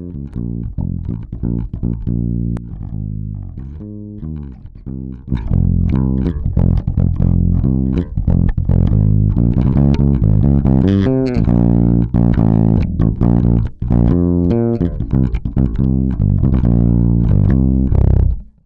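Bass guitar line played back through a Great River PWM-501 compressor while its settings are adjusted. It grows clearly louder about five seconds in and cuts off abruptly near the end.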